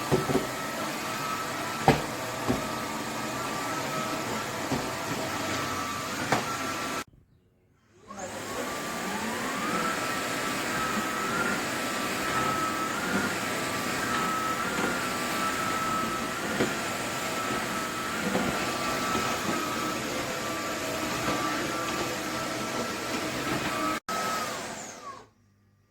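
Roborock F25 cordless wet-dry vacuum mop running with a steady motor whine. It cuts out about seven seconds in, spins back up a second later with a rising whine, and winds down near the end. A few sharp knocks come in the first seconds.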